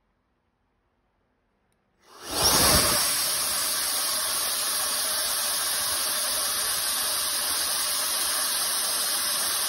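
Electric turbo compressor run on 24 V switching on about two seconds in, spinning up with a quick rising whine and then running at speed with a steady loud rushing hiss of air, holding about 6 psi of boost.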